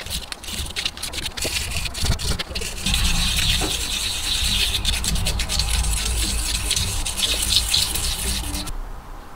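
Hand scrubbing the carbon-crusted crown of a Rover K-series piston inside its cylinder liner: rapid scratchy rubbing that gets louder about three seconds in and stops sharply near the end.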